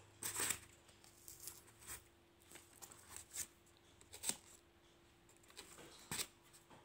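Paper cutout figures rustling and crinkling as they are handled and moved on a paper board: short, scattered bursts, about six of them.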